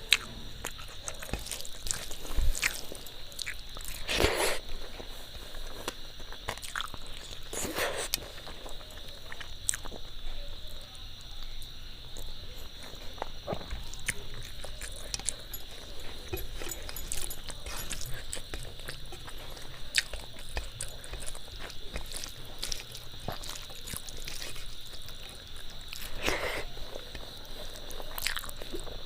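A person chewing and eating a meal of rice and fish curry, with scattered wet mouth clicks and smacks and a few louder eating noises. A steady high-pitched whine sits underneath.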